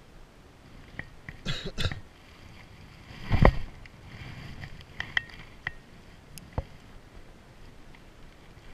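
Handling noise from an ultralight spinning rod and reel right at the camera: sharp clicks and taps from the reel, rubbing and rustling from gloved hands, and a loud low thump about three and a half seconds in.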